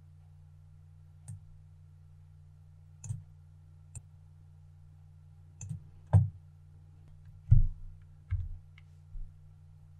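Irregular clicks of a computer mouse being worked at a desk, about nine in all, the loudest about six and seven and a half seconds in, over a steady low hum.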